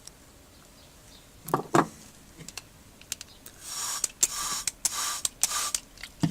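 Handling noises while filtering an acid solution through a cloth: two knocks, a few small clicks, then four short hissing rustles.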